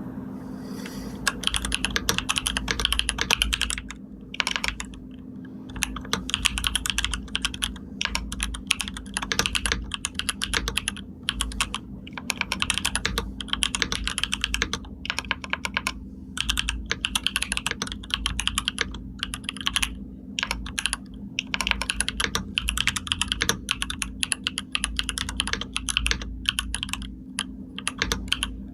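Computer keyboard typing: quick runs of key clicks in bursts, broken by brief pauses of about a second. A steady low hum runs underneath.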